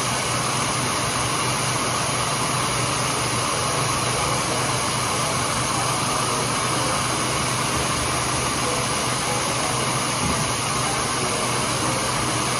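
Electric heat gun running steadily: a constant rush of blown air with a faint low hum.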